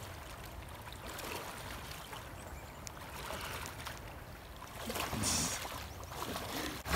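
Water swishing and lapping around a person's waders as he wades through shallow river water, swelling briefly about five seconds in.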